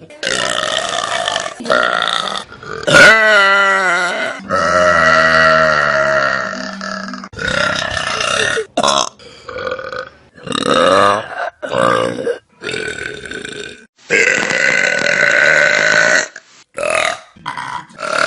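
A run of loud burps from different people, one after another, about a dozen in all. Several are long and drawn out: one lasts about three seconds and another about two, with short gaps between them.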